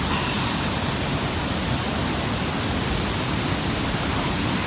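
Bousra waterfall's falling water making a steady rushing noise.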